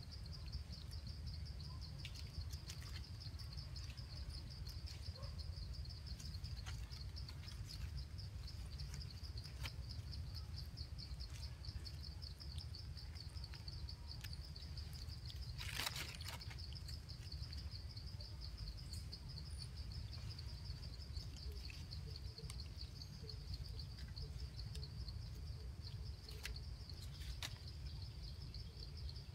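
Insects trilling steadily, a high, rapidly pulsing buzz, over a low rumble of background noise. A single sharp click stands out about halfway through.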